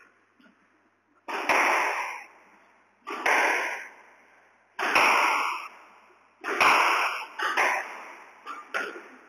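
A squash ball struck by a racket and smacking off the court walls, about six sharp hits each with a decaying echo, a second or two apart and closer together near the end.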